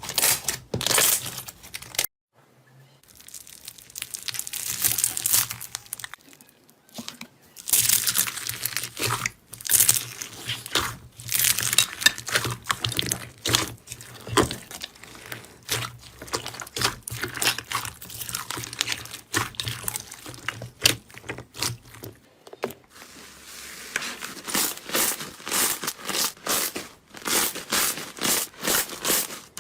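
Slime being played with by hand, giving dense crackling and popping sounds, in several short clips that change abruptly a couple of seconds in, at about seven seconds and about two-thirds through.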